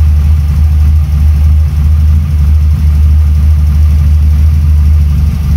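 Toyota 4A-GE 20-valve inline-four, breathing through open individual throttle bodies with filters, idling steadily with a deep, even drone.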